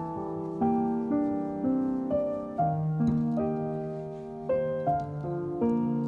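Gentle piano music: single notes and chords struck one after another, each ringing and fading.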